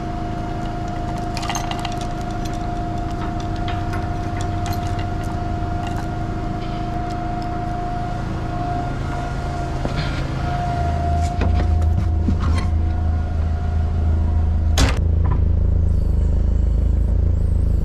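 Forklift engine running, with the clink of the lifting chain being hooked on near the start. About eleven seconds in, the engine's rumble grows louder and holds, and a single sharp bang comes a few seconds later.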